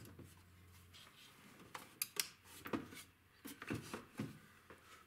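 Small tools and parts handled on a workbench: a run of light clicks and taps with some rubbing, several close together in the second half.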